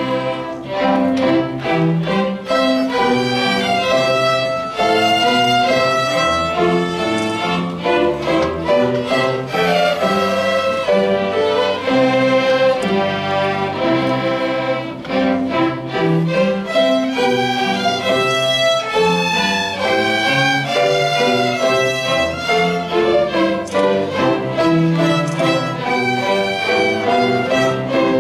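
Instrumental music played on bowed strings, a violin carrying the melody over lower string parts, in a continuous, flowing passage.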